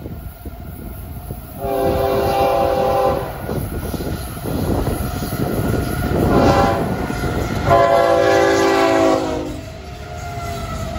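Air horn of a Florida East Coast GE ES44C4 diesel freight locomotive, sounding two long blasts, the crossing warning, over the steady rumble of the train's engines as the locomotives come up and pass close near the end.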